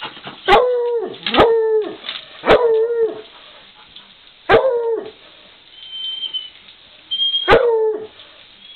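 A black-and-tan dog howling in short bursts: five loud bark-howls, each held for about half a second and dropping in pitch at the end, with pauses between, the longest gaps near the middle and end.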